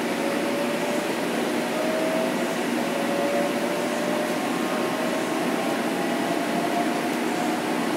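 Inside the car of a Metro-North M7 electric multiple unit: the Mitsubishi IGBT traction inverter and AC traction motors whine, rising in pitch in several steps as the train picks up speed. Under the whine is the train's steady running noise.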